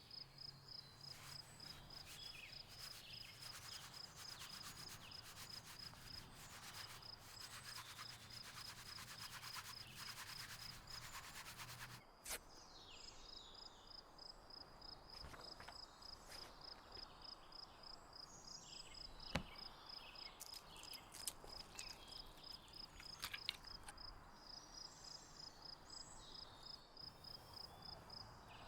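Insect chirping steadily as a rapid high-pitched pulsing, with scattered rustling over it. A faint low hum under the first part cuts off suddenly about 12 seconds in.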